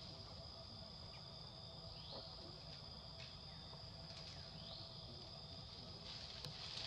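Faint forest ambience: a steady, high-pitched insect drone, with a few short falling chirps over it and a low rumble underneath.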